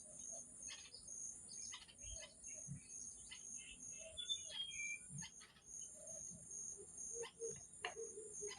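Steady high-pitched insect trilling, pulsing about three times a second, with a few faint short bird chirps scattered through it.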